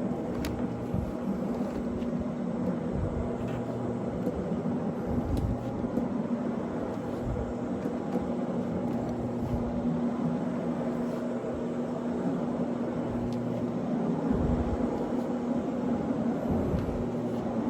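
1.5-horsepower rotary floor machine running steadily as it works over carpet, its motor giving a constant hum with an uneven low rumble underneath.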